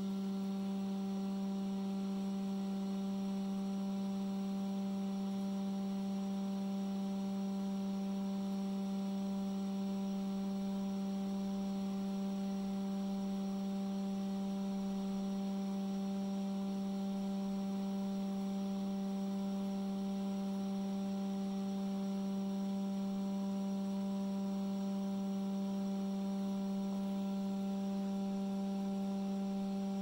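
Hot air rework station blowing steadily, heating the solder of an M.2 connector to desolder it: a constant hum with its overtones over a soft rush of air.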